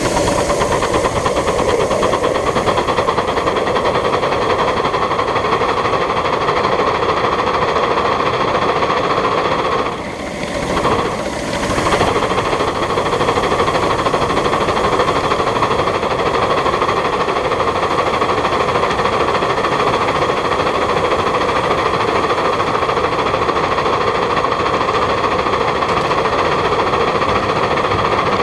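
1/8th-scale live steam locomotive running with its train, a steady mix of mechanical running noise and rolling on the track. The sound dips briefly about ten seconds in.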